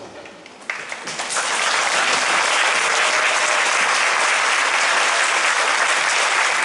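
Audience applauding, starting suddenly a little under a second in and holding steady.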